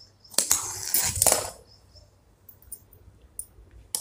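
Large tailor's scissors snipping through layered suit fabric and its lining, a quick run of cuts and cloth rustle in the first second and a half. Faint ticks follow, and a sharp click near the end as the metal scissors are laid on the marble floor.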